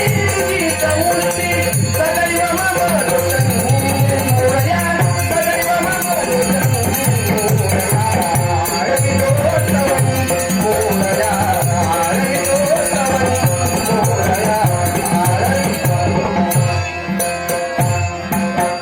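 Devotional Ganesh stavan music from a Dashavatar folk-theatre troupe: a wavering melody over quick, evenly spaced drum strokes and a continuous jingle of small cymbals or rattles, easing off near the end.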